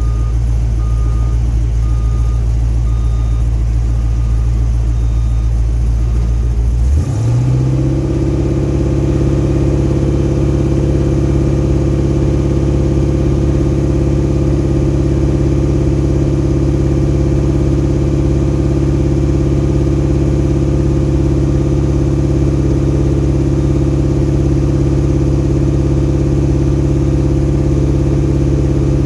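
Engine idling low with a short beep repeating about once a second. About seven seconds in, the engine revs up and holds a steady higher speed.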